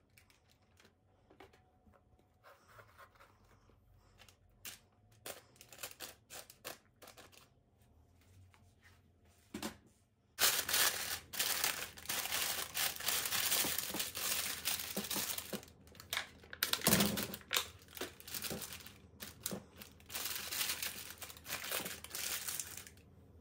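Baking paper crinkling and rustling as it is handled and folded in a baking dish. The first half holds only scattered light taps and clicks from handling the chicken pieces and a plastic tub of marinade; about ten seconds in, the crinkling starts suddenly and is loud and continuous until near the end.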